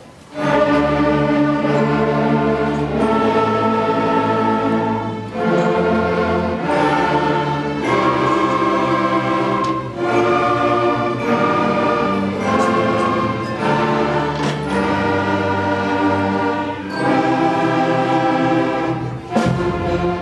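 A school concert band and string orchestra playing together, starting with a loud chord about half a second in. They play a folk-song arrangement in held chords that change every couple of seconds.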